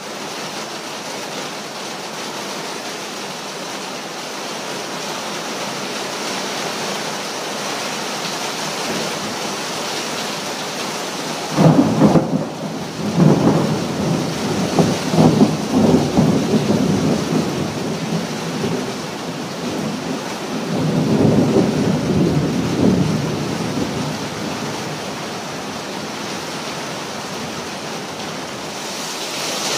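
Steady rain falling, with a clap of thunder breaking in suddenly about twelve seconds in and rumbling on in several swells for about seven seconds, then a second, shorter rumble a couple of seconds later.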